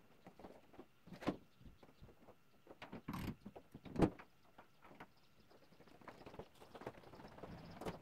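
Faint, scattered knocks and clatter, the loudest about four seconds in, with a low rumble building near the end.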